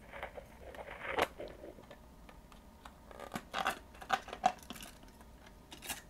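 Light plastic clicks and rattles from handling a typewriter daisy wheel, swapping the print wheel in an electronic typewriter: a soft rustle at first, then a cluster of small clicks about three to five seconds in.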